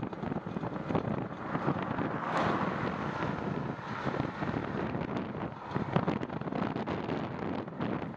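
Wind buffeting the microphone of a camera on a moving bicycle: a steady rough rush with crackles, swelling about two seconds in.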